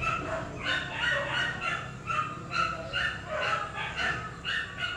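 A rapid run of short, high animal calls, about three a second, keeping up without a break.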